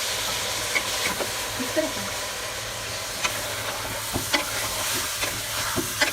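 Chicken, potatoes and ground tomatoes sizzling in hot oil in a pot, a steady hiss, with a spoon knocking and scraping against the pot every so often.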